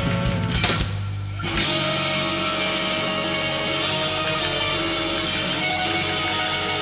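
Live electric blues band of electric guitar, bass and drum kit playing: drums and guitar, a brief drop about a second in, then a held chord ringing out under a cymbal wash, as at the close of the song.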